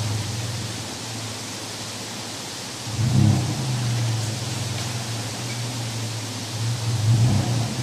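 Toyota 4Runner's engine running as it crawls through a shallow creek, heard as a steady low hum that swells about three seconds in and again near the end, under a steady hiss.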